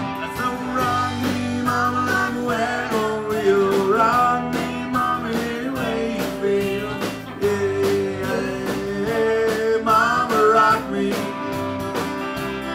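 Live country band playing an instrumental break: a fiddle carries the melody over a strummed acoustic guitar and a steady drum beat.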